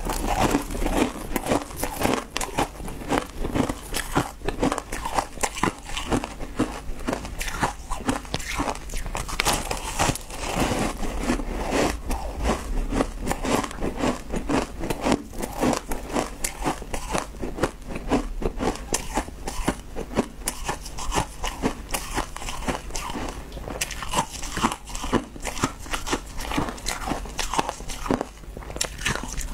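Shaved ice being bitten and chewed in chunks: a continuous run of crisp crunches and crackles.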